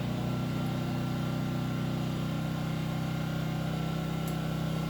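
Enkeeo SC2300i 79cc four-stroke OHV inverter generator running steadily in economy mode with almost no load, an even engine hum.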